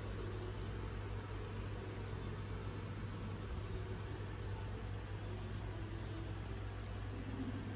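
Steady low mechanical hum under an even hiss, unchanging throughout: background room or appliance noise.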